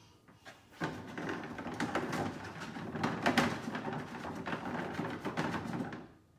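Play-kitchen sink's electronic sound effect, set off at the faucet: about five seconds of dense crackling noise from a small toy speaker. It starts suddenly about a second in and dies away near the end.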